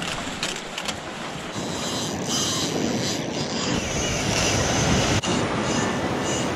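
Wind blowing on the microphone, mixed with sea waves washing against rocks. The noise grows louder about one and a half seconds in and breaks off for an instant a little after five seconds.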